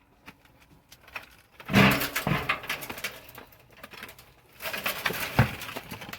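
Carrot tops rustling and soil scraping as carrots are pulled by hand from a bucket of potting soil, in two noisy bursts of a second or two each.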